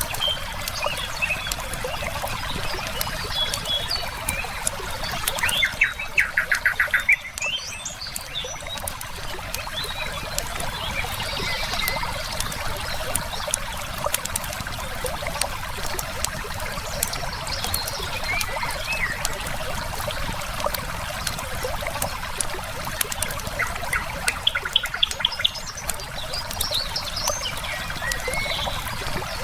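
River water flowing steadily under a wood fire's frequent crackles and pops, with songbirds calling over it. A fast trilled bird phrase about six seconds in is the loudest sound, and a similar trill comes again later.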